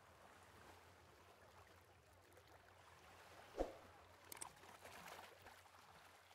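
Near silence: faint ambient noise, with one short thump about three and a half seconds in and a few faint clicks just after it.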